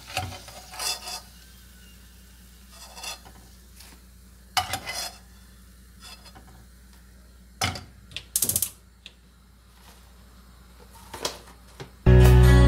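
Metal skimmer and spoon clinking and scraping against a cooking pot of frying lard in a few separate knocks, with a quick rattle of taps about eight seconds in. Music starts suddenly near the end.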